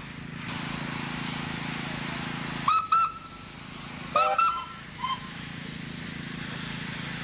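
Steam traction engines working under a heavy haul, a steady rumble and hiss, with steam whistles sounding: two short toots about three seconds in, a longer toot just over a second later, then a brief one.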